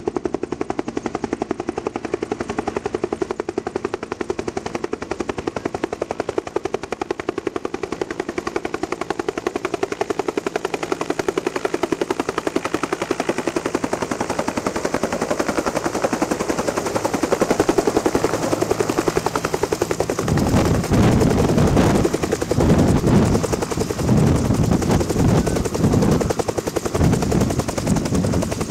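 Bell UH-1H Huey helicopter coming in to land, its two-bladed main rotor beating in a rapid, steady blade slap that grows louder as it approaches. From about twenty seconds in, heavy irregular low rumbles join it as the rotor downwash buffets the microphone while the helicopter sets down.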